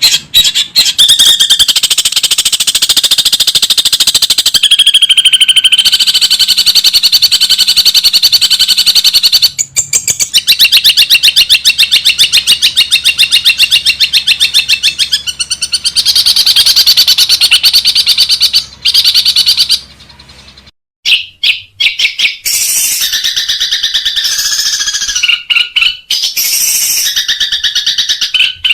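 Long-tailed shrike (cendet) singing loudly in long runs of rapid, harsh repeated notes. The song breaks off briefly about twenty seconds in, then resumes in shorter phrases.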